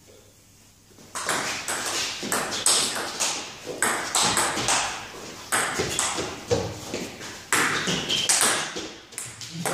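Table tennis rally: the ball clicks off the paddles and bounces on the table in quick, uneven alternation, starting about a second in and running until just before the end.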